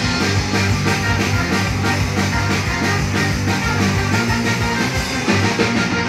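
Live ska-punk band playing loudly: distorted electric guitar, drums with a steady beat, and trombone, heard from the audience in a small club.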